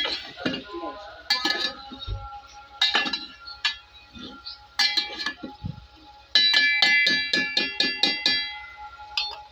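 Metal slotted spoon knocking and scraping against a metal cooking pot while stirring chunks of potato and aubergine. Scattered clanks at first, then about six and a half seconds in a quick run of ringing taps on the pot for about two seconds.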